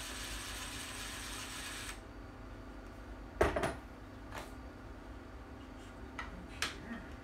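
Cordless drill-driver running steadily for about two seconds on a screw in a prop rifle, then a loud clatter as the drill is set down, followed by a few light clicks of parts being handled.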